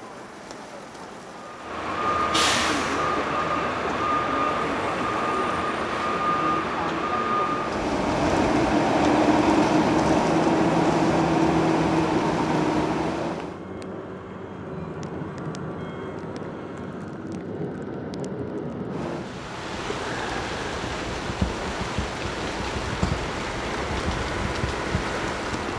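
A heavy truck on the street: a short hiss of air brakes, then a reversing alarm beeping repeatedly over the running engine. After that comes quieter outdoor ambience with scattered clicks.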